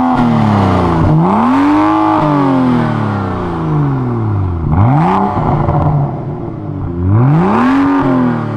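BMW 135i's turbocharged 3.0-litre straight-six revved while standing, through a Berk Technology full-race catback exhaust with the muffler removed and the catalytic converters kept. A rev is falling away at the start, then three more blips rise and fall in pitch, about two, five and eight seconds in.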